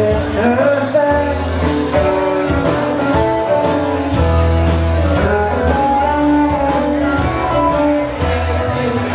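Live rock band playing, with guitars over a strong bass line.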